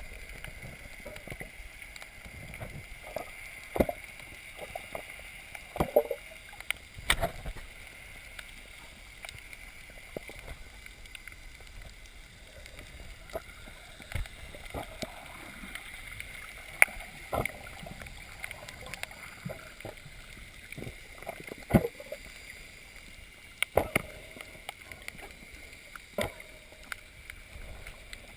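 Muffled underwater ambience picked up by a GoPro in its waterproof housing just below the surface over a coral reef: a steady hiss with irregular sharp clicks and knocks scattered throughout.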